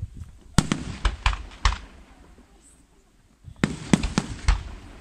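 Aerial firework shells bursting: a quick run of about four sharp bangs in the first couple of seconds, a lull of about two seconds, then another run of four bangs.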